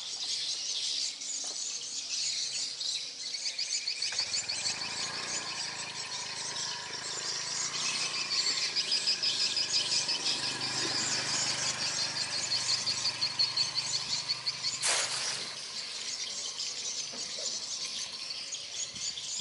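A high, fast-pulsing trill of calling insects or birds runs on behind the scene, with a low hum under it. About fifteen seconds in comes one short splash as a thrown cast net hits the water.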